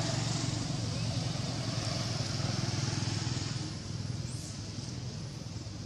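An engine running with a steady low hum that grows quieter about two-thirds of the way through.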